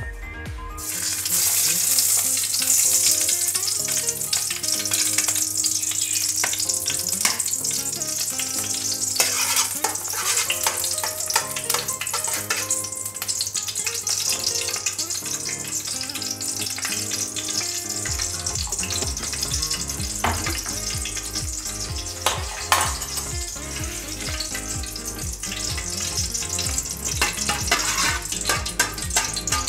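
Ghee sizzling in a hot aluminium kadai, a steady frying hiss that starts about a second in. A spoon stirs it, clicking against the pan now and then.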